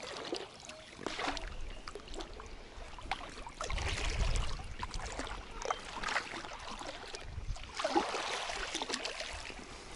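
Kayak paddling: water splashing and dripping off the paddle, with light knocks. Two louder swells of splashing come about four seconds apart.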